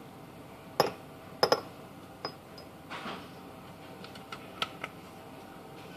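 Glass shot glasses being handled and set down, giving a few sharp taps and clinks. The two loudest come in the first two seconds, followed by a scatter of lighter clicks.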